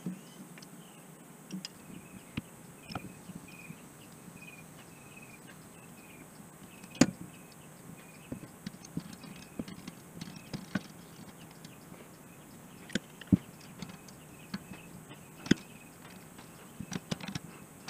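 Hand tools clicking and tapping against the valve adjusters of a Honda Rancher 350 ATV engine while the valve clearance is set: scattered sharp metal clicks, the loudest about seven, thirteen and fifteen seconds in.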